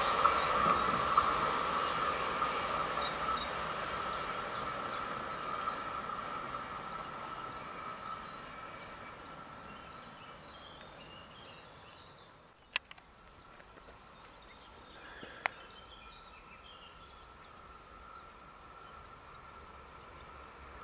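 An Intercity train's wheels and rail noise fading steadily as it runs away down the line, dying out over about twelve seconds. This gives way to faint countryside ambience with insects, broken by two sharp clicks a few seconds apart.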